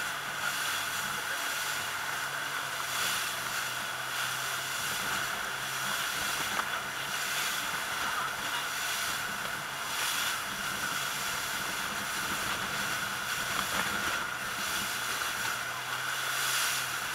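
Motorboat engine running steadily at speed, a low hum under a constant hiss of rushing water and spray.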